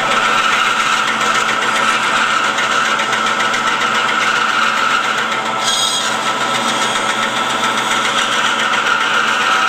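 Bandsaw running steadily, its blade cutting through a thick block of wood along the front-view line of a head carving. A brief higher tone about six seconds in.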